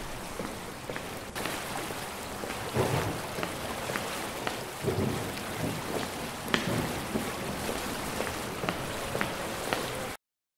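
Rain falling steadily, with low rumbles of thunder a few seconds in. It cuts off abruptly near the end.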